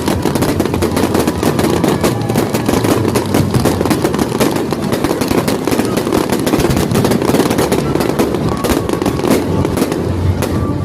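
Fireworks going off in a rapid, unbroken barrage of crackles and bangs, many bursts a second.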